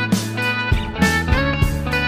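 Background music: an instrumental stretch of a pop song, guitar over bass with regular drum hits, between sung lines.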